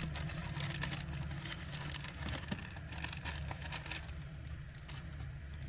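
Small clicks and light rustling as the parts of a power steering seal kit are handled, over a steady low hum.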